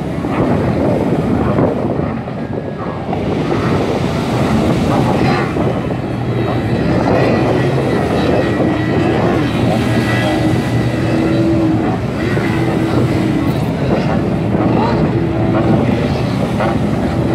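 Engines of racing powerboats running at speed: a steady drone with wind on the microphone.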